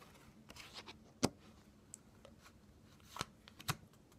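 Playing cards handled close to the microphone: a soft rustle, then a few sharp taps and clicks, the loudest about a second in.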